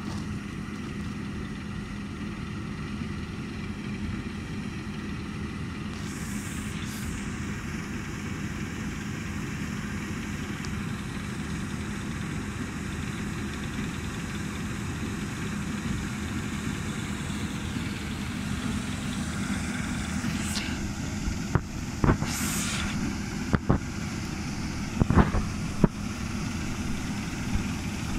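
Claas Lexion 660 combine harvester running while it harvests rapeseed: a steady mechanical drone with a constant hum, growing a little louder as the machine comes closer. A few short thumps sound in the last several seconds.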